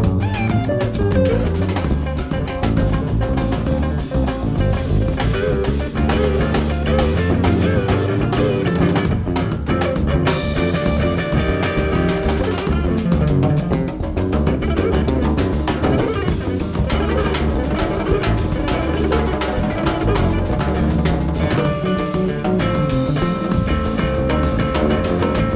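Jazz band playing: electric guitar over a busy drum kit, continuous and loud.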